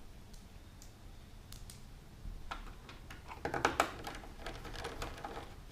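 Screwdriver driving the last screw into a PlayStation 3's hard drive bay: a few faint ticks, then a run of quick small clicks and scrapes in the second half.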